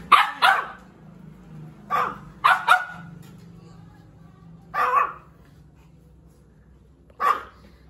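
Dog barking: seven sharp barks in loose groups, a quick pair, then three close together, then two single barks spaced a couple of seconds apart.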